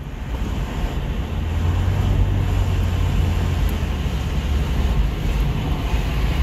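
BMW 330ci's 3.0-litre straight-six running, a steady low rumble with a rush of noise over it, building in loudness over the first two seconds and then holding steady.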